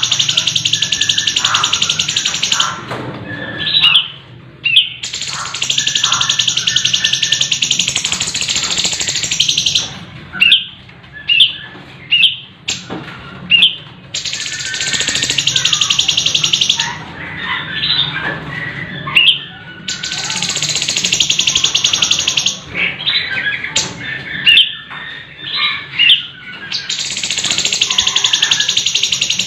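Caged cucak cungkok, a leafbird, singing. Long, rapid rolling trills of about three seconds each alternate with groups of short, sharp whistled notes, the 'ngerol' and 'tembakan' of this bird's song.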